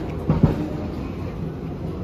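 Christchurch heritage tram rumbling along its street rails as it moves past, with a heavy clunk about half a second in.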